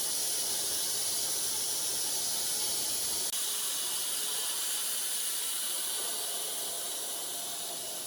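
Wide band sawmill cutting through a walnut log, a steady high hiss from the running blade that fades slightly near the end.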